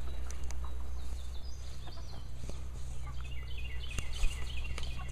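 Small birds chirping in short, falling notes, with a quick run of chirps in the second half, over a steady low hum and a couple of light clicks.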